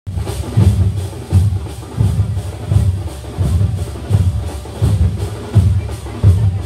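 Festival percussion troupe drumming the closing climax (kalashakottu) of its performance. Heavy bass beats land steadily, about three every two seconds, with quicker drum strokes and light ticks between them.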